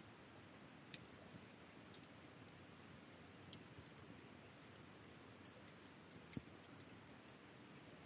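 Wood fire of split logs burning in a folding steel fire stand, crackling faintly with irregular sharp pops over a soft steady hiss; the loudest pop comes about six seconds in.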